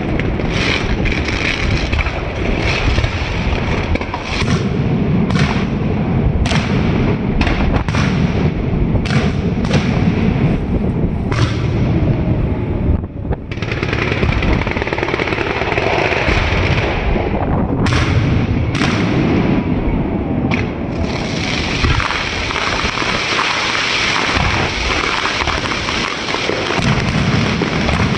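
Fireworks going off without a break: dense crackling packed with many sharp bangs, briefly thinning about thirteen seconds in.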